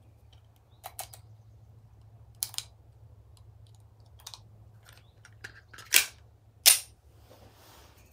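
A 9mm pistol being loaded by hand: a few light clicks as cartridges are pushed into the magazine, then two much louder, sharp clacks about a second apart, typical of the magazine being seated and the slide racked.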